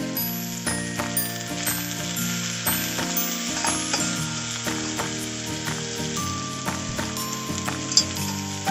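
Food sizzling as it fries in a pan, a steady crackle with small pops, under background music with held notes.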